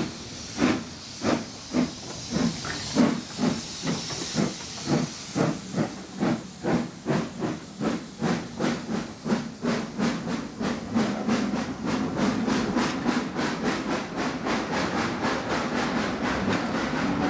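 Two steam saddle-tank locomotives double-heading a passenger train away from a standstill: their exhaust beats chuff steadily, with hiss of steam, and quicken from under two a second to a rapid run as the train gathers speed. Toward the end the coaches roll past with a steady rumble of wheels.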